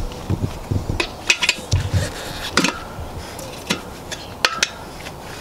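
Short steel tire irons clinking and scraping against a spoked motorcycle rim while the tire bead is levered over it: a series of sharp metallic clicks, two of them ringing briefly, with a few dull knocks.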